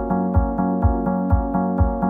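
Background music with a steady low beat, about two beats a second, over held chords.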